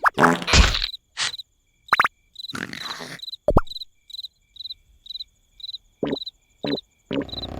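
Cartoon night ambience: a cricket chirping steadily, about two to three chirps a second. Short cartoon sound effects and squeaks punctuate it, the loudest a burst at the very start.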